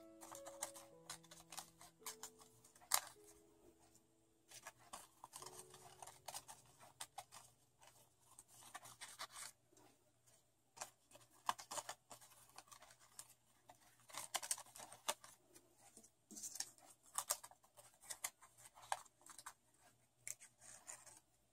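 Faint crinkling and clicking of folded origami paper petals being handled and pressed between the fingers, in short irregular flurries.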